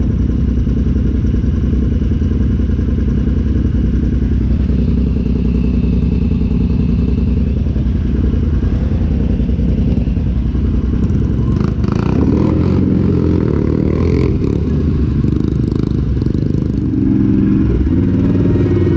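Side-by-side UTV engine running steadily as it drives, with clattering knocks from the machine about two-thirds of the way through.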